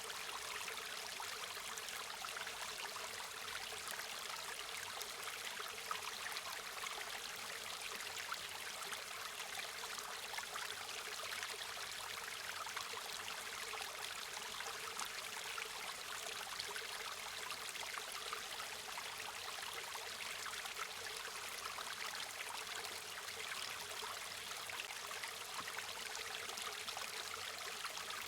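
River water flowing steadily, a continuous rushing and trickling over stones.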